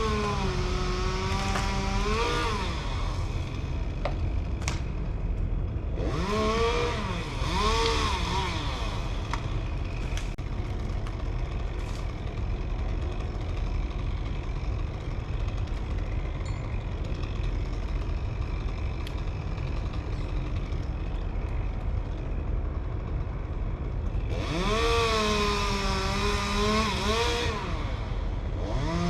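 Chainsaw engine revving up and down in several spells: near the start, twice in quick succession a few seconds in, and again near the end. Between the spells a steady engine rumble runs on.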